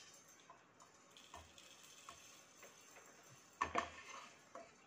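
Roasted whole spice seeds (fenugreek, cumin and fennel) tipped and scraped with a spatula from a frying pan into a steel mixer-grinder jar. Faint, scattered ticks of seeds dropping, with a short cluster of louder clicks and scrapes a little before the end.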